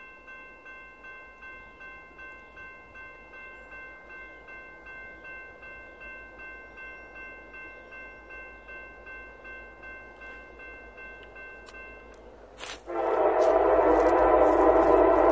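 Railroad grade-crossing warning bell ringing in a steady rapid rhythm of high tones. Near the end an approaching locomotive's horn comes in loud and sustained, drowning out the bell.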